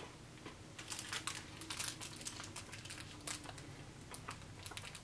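Someone chewing a piece of cinnamon MRE gum: a run of irregular small mouth clicks.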